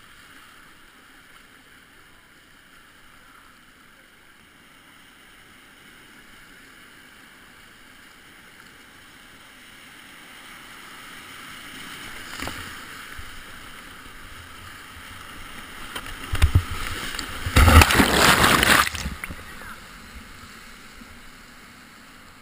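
Whitewater rapids rushing around a kayak, heard from the boat. The rush grows louder from about halfway, and near the end water splashes hard over the kayak for a couple of seconds, the loudest part, before easing off.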